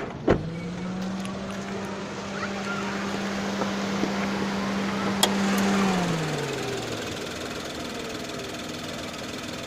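Maruti Celerio's three-cylinder engine idling with a steady hum that holds for about five seconds, then drops in pitch after a sharp click near the six-second mark. A sharp click also sounds right at the start.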